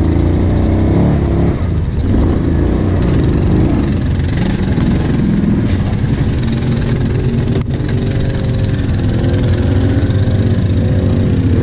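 Kawasaki KVF 750 Brute Force ATV's V-twin engine running under load, its pitch rising and falling as the throttle is opened and eased. A single sharp knock comes about two-thirds of the way through.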